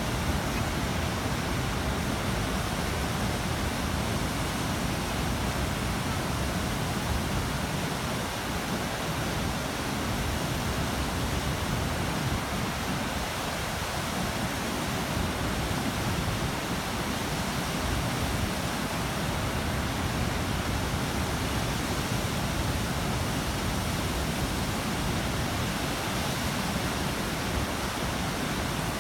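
Waterfall pouring down onto rock, a steady, dense rush of water.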